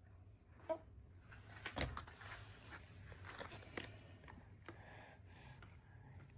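Light clatter of a baby feeding itself at a highchair: scattered taps and knocks of hands, food and utensils on the tray and suction plate, with a busier stretch and the loudest knock a little under two seconds in.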